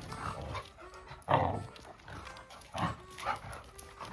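Dogs play-fighting, with about four short, rough bursts of growling and snarling spread through the scuffle.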